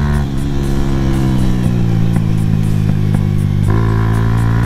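Suzuki GS150 SE's single-cylinder four-stroke engine running under way on a rough dirt track. Just after the start the throttle eases off and the engine note thins and sags slowly, then near the end the throttle opens again and the note comes back fuller.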